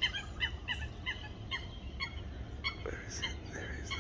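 Waterfowl on the lake calling: a quick run of short, repeated calls, about three a second.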